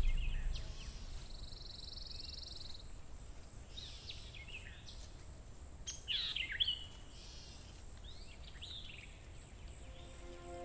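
Songbirds chirping and calling in short swooping phrases over a low steady rumble, with a buzzy trill a couple of seconds in and the loudest calls about six seconds in.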